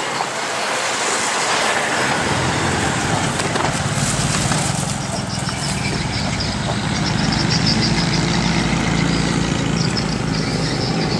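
Road traffic crossing a bridge: a steady rush of passing vehicles, with a heavier engine rumble building from about halfway through.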